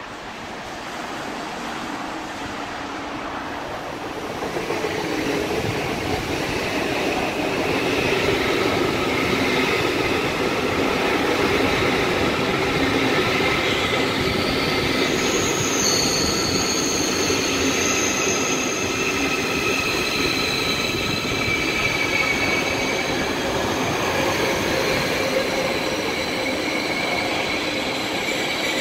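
A train running on the rails, growing louder over the first five seconds or so and then running steadily. From about seven seconds in, high-pitched squealing tones from the wheels ride over the rail noise.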